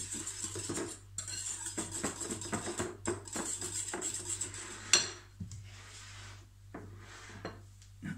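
Wire whisk beating yoghurt and quark in a glass bowl: fast, rhythmic clinking and scraping against the glass. About five seconds in comes a single sharp clink and the whisking stops, followed by a few light knocks as the bowl and a wooden cutting board are shifted on the counter.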